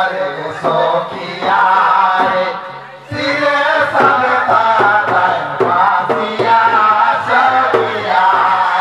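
Men singing a Karma puja folk song through handheld microphones, with other voices joining and a drum beat underneath. The singing breaks off briefly a little before three seconds in, then comes back louder.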